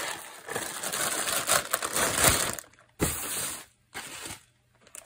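Hands rummaging through loose foam packing peanuts and a plastic bag: a dense rustling and crunching for about two and a half seconds, then a short rustle about three seconds in and a few fainter ones before it dies away.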